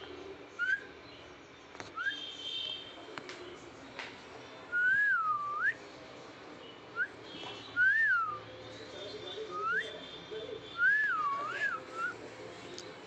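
Someone whistling short phrases of clear single notes, about seven in all, each rising and falling or wavering up and down, with pauses between them.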